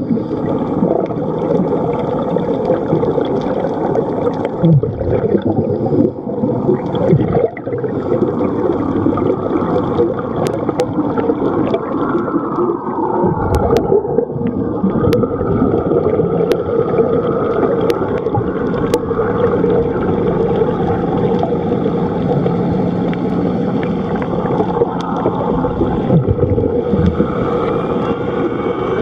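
Muffled underwater gurgling and rumble, with bubbles from a scuba diver's breathing, heard through a camera's waterproof housing.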